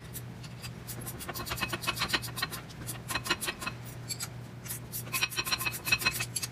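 Ratchet wrench clicking rapidly in several spells as it backs out the loosened caliper bracket bolts, each click with a slight metallic ring.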